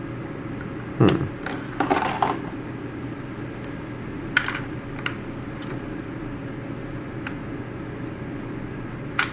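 Plastic clicks and knocks from handling a reusable 35mm film camera and film canister while fitting the film into its chamber. A loud knock comes about a second in and a short rattle of clicks just after two seconds, then single clicks spread through the rest, over a steady low room hum.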